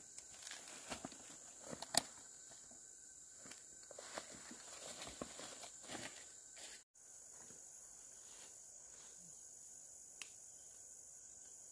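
A steady high-pitched insect drone, crickets or cicadas, with rustling and footsteps through leafy undergrowth over the first half. The sound cuts out for an instant about seven seconds in, after which the insect drone goes on alone with a single soft click.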